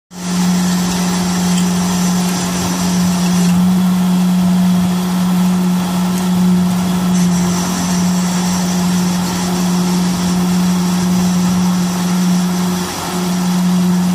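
Slipform kerb machine running as it extrudes a concrete kerb: a loud, steady mechanical hum with one strong low tone that holds unchanged.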